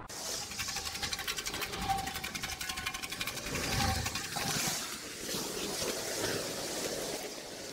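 Steady rushing noise of M3 motorway traffic heard from the underpass beneath it, with the walker's footsteps on the gravel path. A fast, regular rattling runs through the first few seconds.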